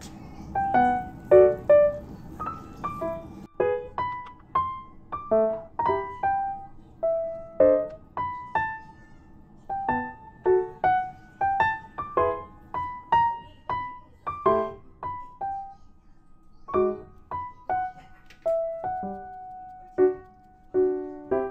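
Background piano music: a light melody of single struck notes, with a few chords.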